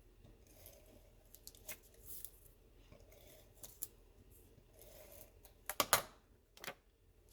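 Cardstock and craft tools being handled on a work surface: scattered short clicks and paper rustles, loudest in a quick cluster about six seconds in.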